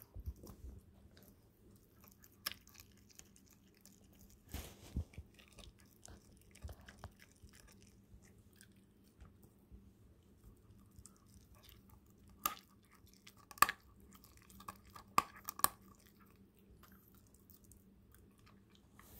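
German shepherd puppy chewing raw chicken on the bone: irregular wet chewing and crunching as the bones break, with a few louder sharp cracks about two-thirds of the way through.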